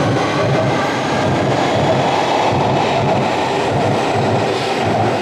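London Underground 2009 Stock train on the Victoria line running, a loud, steady wash of rail and running noise with a faint motor whine above it.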